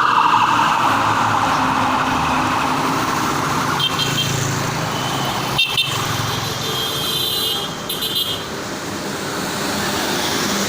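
Road traffic: steady vehicle engine and road noise. A siren-like tone falls in pitch and fades over the first second or two, and short high horn-like tones sound around the middle.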